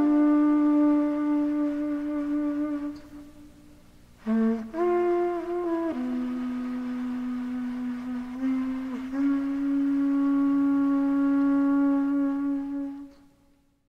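Trumpet playing slow, held notes in a live recording. One long note fades after about three seconds. After a short break come a few shorter notes, then long held notes, the last fading out shortly before the end.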